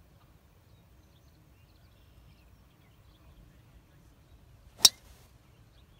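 A driver striking a golf ball off the tee: one sharp, loud crack near the end, with a short ringing tail.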